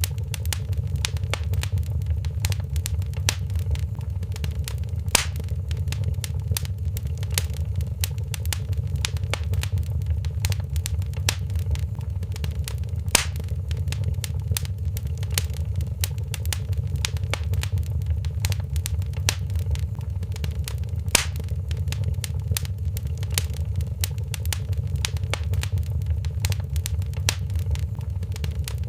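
Wood fire crackling in a fireplace: a dense, irregular run of sharp snaps and pops over a steady low rumble, with a few louder pops standing out.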